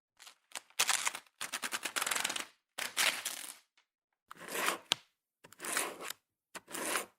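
Desk stationery being handled in a string of short scraping, rustling strokes, each about half a second to a second long with brief silences between; one longer stroke about one and a half seconds in carries a fine rapid ticking.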